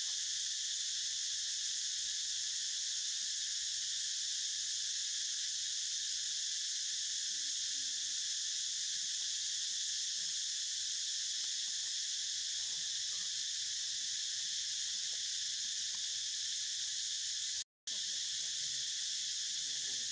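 Steady, dense chorus of insects, a high shrill hiss that does not let up. It cuts out for an instant near the end.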